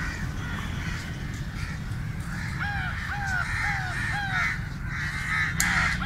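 Crows cawing: a run of about four evenly spaced caws a little over two seconds in, then harsher, noisier caws near the end, over a steady low rumble.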